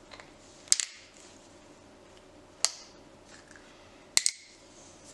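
Small glass food-colouring bottles and a spoon being handled: three sharp clicks and knocks, the first and last doubled.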